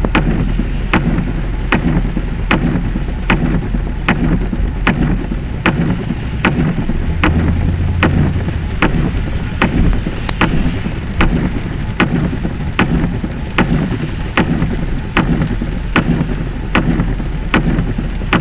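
Steady rain and water noise with a low vehicle hum, and a sharp click repeating evenly about every 0.8 seconds.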